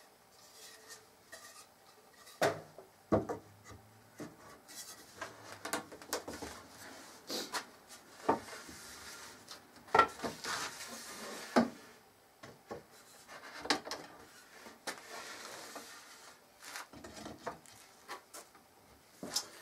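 Wooden storm-window frame pieces being handled and fitted together: scattered knocks and clacks of boards, with stretches of wood rubbing and sliding as the tenons are pushed into their mortises.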